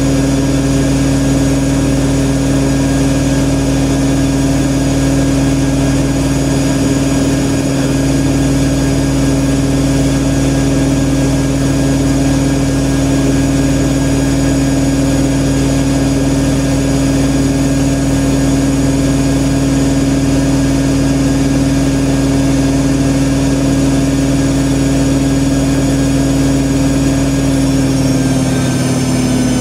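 IKEA RENLIG IWM60 washing machine in its 1200 RPM final spin: a loud, steady motor whine and drum hum that begins to drop in pitch near the end as the spin starts to wind down. The motor has some roughness that the owner puts down to its bearings.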